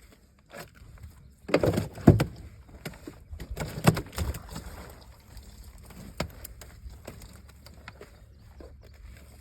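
Thumps and clatter in a fishing boat: two loud bursts of knocking about a second and a half and four seconds in, then scattered light clicks and taps.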